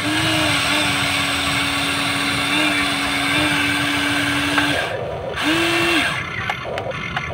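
Remote-control toy excavator's small electric motor and gears whirring steadily as the arm lifts a bucket of sand. The whir stops about four and a half seconds in, starts again briefly about a second later, then gives way to a few light clicks.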